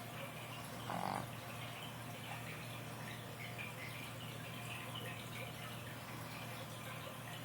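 Sleeping Boston terrier puppy making soft, irregular wet clicking and smacking sounds with its mouth, suckling in its sleep, with one short louder noise about a second in.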